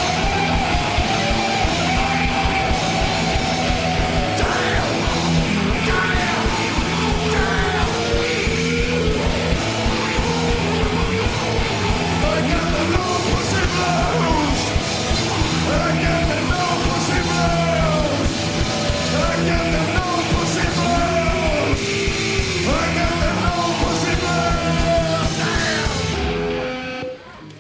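Loud, distorted live rock band playing an instrumental outro: pounding drums and fuzzed guitars with squealing, wavering high lines. The music cuts off abruptly about a second before the end.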